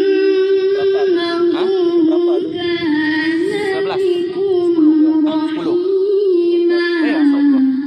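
A child qori reciting the Quran in maqam Rast, one long held phrase in a high, strong voice with wavering melismatic ornaments, breaking off near the end.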